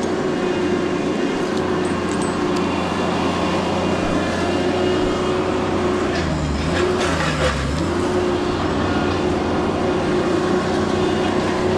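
Two-stroke chainsaw running at high revs with a steady whine. About six seconds in, the throttle is let off twice in quick succession, so the pitch drops toward idle before climbing back up.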